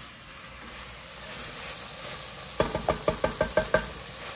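Sliced mushrooms sizzling in an enamelled cast-iron pot, with a quick run of about eight knocks of a wooden spoon against the pot just past halfway as they are stirred.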